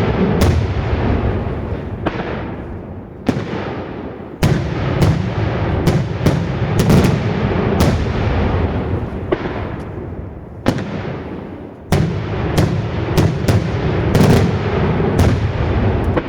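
Daytime fireworks display: loud aerial shells and bombs going off in a rapid, irregular series of sharp bangs, a dozen or more, over a continuous rumble of echoing booms.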